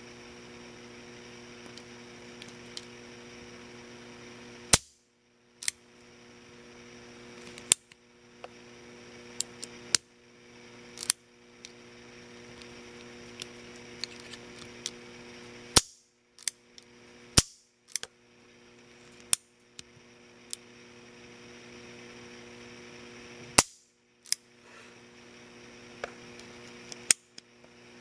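Action of a partly disassembled FEG PA-63 pistol worked by hand: sharp metallic clicks of the hammer, sear and trigger bar at irregular intervals, several of them loud snaps, over a steady low hum.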